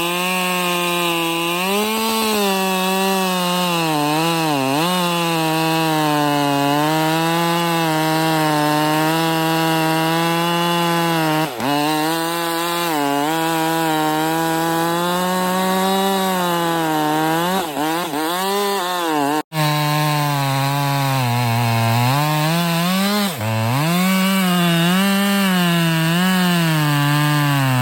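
Stock Husqvarna 550 XP two-stroke chainsaw running at high revs while cutting oak, its pitch sagging repeatedly as the bar loads up in the cut and climbing back as it clears. The sound breaks off for an instant about two-thirds of the way through.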